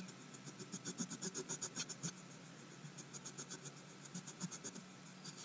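Crayon rubbed quickly back and forth on paper while colouring in: faint rhythmic scratching, about five strokes a second, in two runs with a short pause near the middle.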